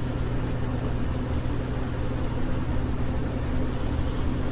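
Steady low electrical-sounding hum with hiss underneath, unchanging throughout.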